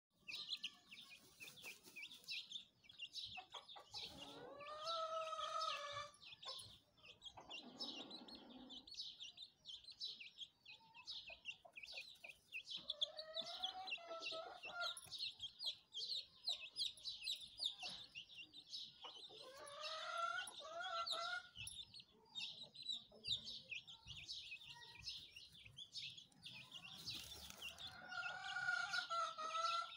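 Chickens calling: a rooster crows four times, each crow lasting about two seconds, over a constant rapid high chirping.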